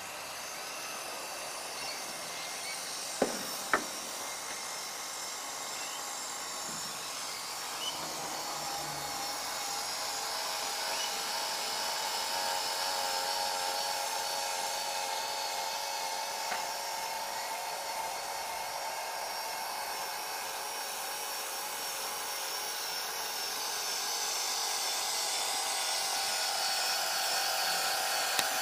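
Electric motor and metal gearbox of an HG P803A 8x8 RC truck whining as it drives, the pitch wavering with speed and slowly growing louder. Two sharp clicks about three seconds in.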